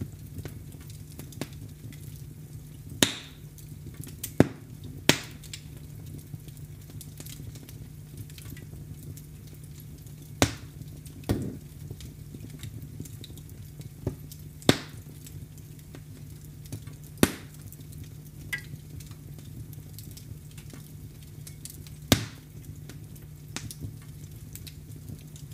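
Fire in a fireplace crackling, with about eight sharp pops spread at irregular intervals over a low, steady rumble.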